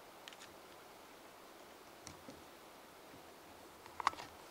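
Faint clicks and taps of the plastic water pump housing and parts being handled, with a louder cluster of sharp clicks about four seconds in.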